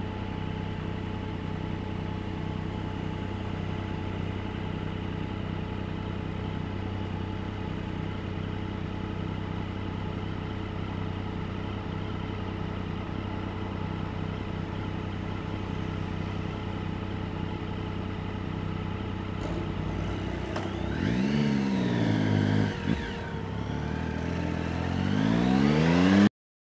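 2008 Triumph Speed Triple's inline-three engine idling steadily, then revving as the bike pulls away about 20 seconds in. The pitch rises, drops at a gear change and rises again near the end, and then the sound cuts off suddenly.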